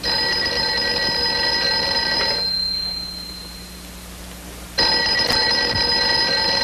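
Telephone bell ringing twice, each ring about two and a half seconds long with a pause of about the same length between, the bell tone lingering briefly after each ring stops.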